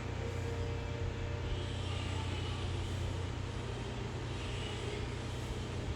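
Steady low droning hum with a faint even hiss over it and no distinct events.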